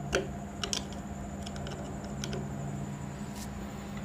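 Screwdriver working a screw loose on an old sewing machine's needle-bar clamp: a few light metal clicks and scrapes spread over the few seconds, over a steady low hum.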